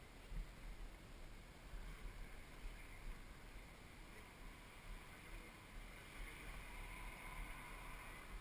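Low wind rumble buffeting the action camera's microphone, with faint rolling noise, as a mountain bike coasts slowly along a paved street.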